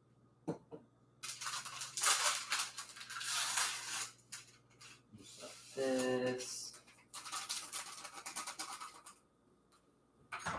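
Scratchy rustling and scraping in several bursts from kitchen handling at the stove as instant grits go into a pot, with a short pitched tone about halfway through.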